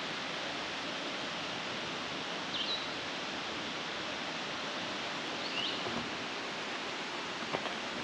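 Steady rushing noise of a waterfall. A short, high bird chirp cuts through twice, and there are a few faint clicks near the end.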